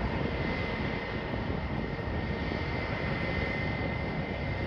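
Distant StarFlyer Airbus A320 jet engines at takeoff power: a steady rushing noise with a thin high whine running through it.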